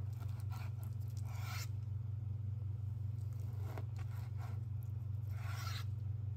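Long chef's knife slicing raw yellowtail into sashimi on a plastic cutting board: two longer drawn slicing strokes, about a second and a half in and again near the end, with a few lighter cuts between. A steady low hum runs underneath.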